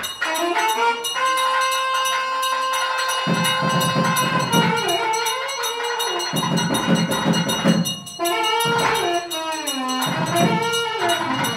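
Background devotional music: a melody with a long held note and later gliding, wavering notes over a light, steady percussion beat.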